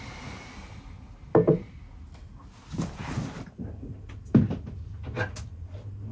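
Household objects being handled and moved: a sharp knock about a second and a half in and a second, louder one after about four seconds, with rustling and a few light clicks between.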